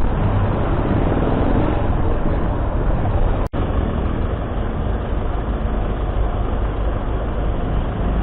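Steady vehicle engine, wind and road noise while riding in traffic, with a brief audio dropout about three and a half seconds in.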